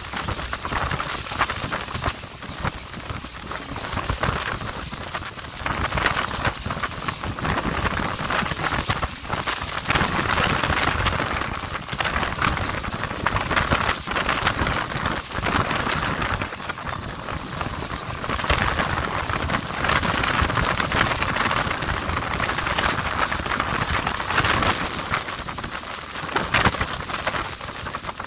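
Roar of Niagara Falls and its wind-blown spray, heard over wind buffeting the microphone; the noise swells and eases every few seconds.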